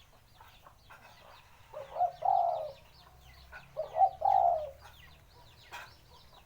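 A tame dove cooing twice, each call a short note followed by a longer one. Faint chirps of small birds run throughout.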